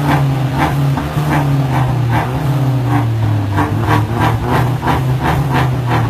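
Mercedes-Benz C300 (W205) 2.0-litre turbo four-cylinder idling through an Armytrix valvetronic exhaust: a steady low drone whose pitch barely changes, with a regular pulsing about two or three times a second.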